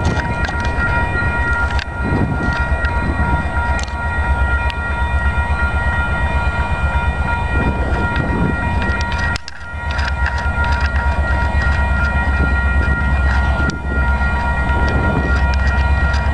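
Diesel freight locomotives of a container train running in the distance, a steady low rumble with a few steady higher tones over it. It dips briefly about nine seconds in.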